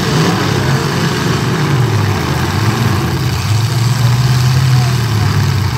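Demolition-derby trucks' engines running loud, their pitch rising and falling as the drivers rev and ease off, over a steady noisy rumble.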